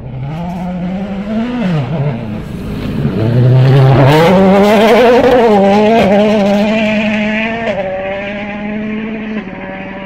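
Rally car engine through a gravel hairpin: the revs rise, drop away about two seconds in, then climb hard as the car accelerates past, loudest about four to six seconds in with sharp crackles. It then holds a steadier note as it pulls away down the stage.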